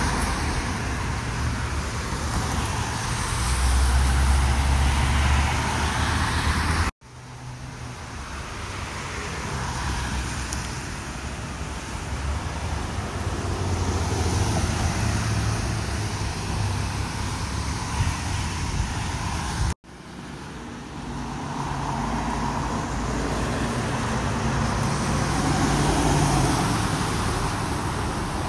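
Road traffic on a multi-lane road: cars and SUVs passing with a steady rush of tyre and engine noise that swells and fades as each one goes by. The sound cuts out abruptly twice, about seven and twenty seconds in.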